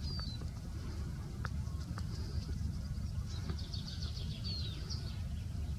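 Small birds chirping, with short high sliding whistles at the start and a quick run of repeated notes about three to five seconds in, over a steady low rumble that sounds like wind on the microphone. A few faint clicks come about a second and a half and two seconds in.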